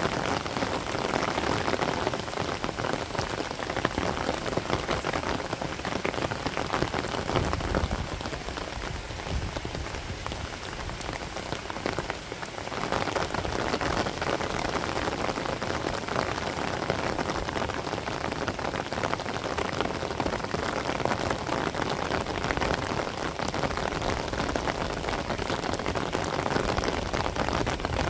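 Steady rain falling on surfaces, a dense hiss of many fine drop patters, easing slightly for a few seconds about a third of the way in.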